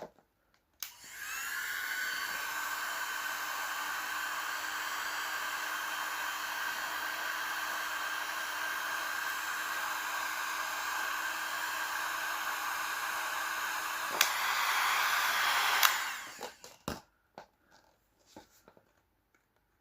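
Electric hot-air heat gun switched on, its fan rising to speed with a whine, then blowing steadily; it gets a little louder after a click, then cuts off suddenly.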